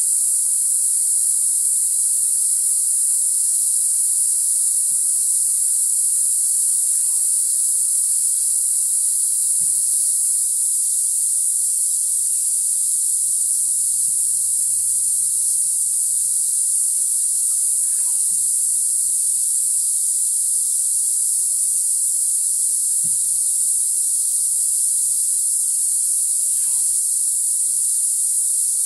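A loud, steady, high-pitched drone of a jungle insect chorus. A few faint chirps and soft low knocks come and go beneath it.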